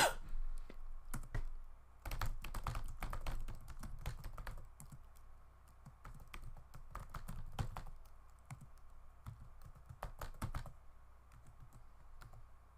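Typing on a computer keyboard in bursts: a sharp click at the start, a quick run of keystrokes about two seconds in, then shorter, sparser runs of keystrokes.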